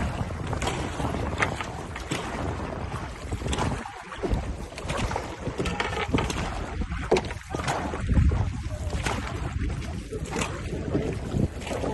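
Dragon boat paddles striking and pulling through the water with splashes at a steady stroke pace, over the rush of water and wind buffeting the microphone.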